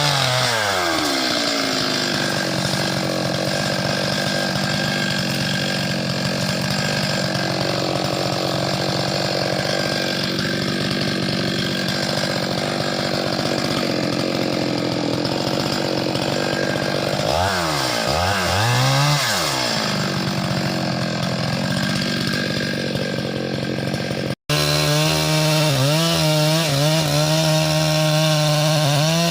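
Chainsaw engine running steadily. Its revs fall just after the start, then dip and climb again about two-thirds of the way through. After a brief dropout near the end it runs at high revs.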